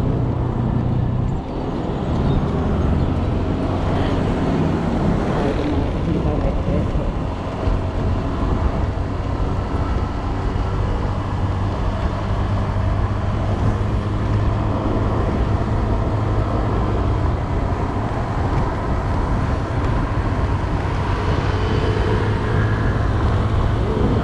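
Honda Click 125i scooter engine running steadily while riding at cruising speed, with steady wind and road noise on the GoPro's foam-covered microphone.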